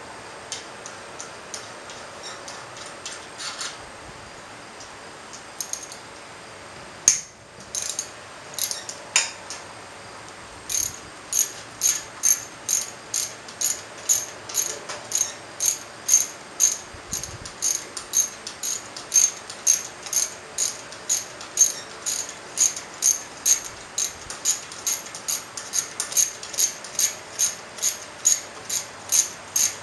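Hand ratchet clicking as it backs out the long-threaded screws of the motorcycle engine's cam chain guide: a few scattered clicks, then a steady run of ratchet strokes, about two a second, from about a third of the way in.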